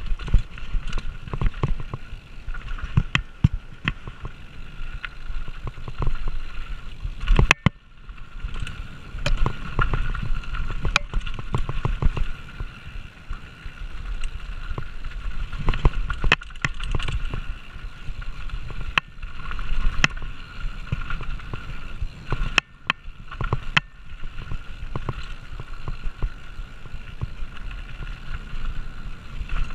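2020 Polygon Siskiu D7 full-suspension mountain bike running down a rocky dirt trail: the tyres rumble over dirt and rock while the bike rattles and knocks over the bumps, with a steady high buzz underneath.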